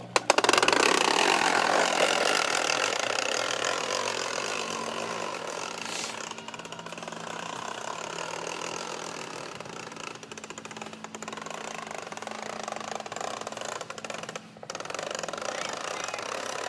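Plastic toy push lawnmower clattering with a fast, continuous clicking rattle as it is pushed over grass. The rattle starts suddenly as it sets off and is loudest in the first couple of seconds. A steady low hum lies underneath it until near the end.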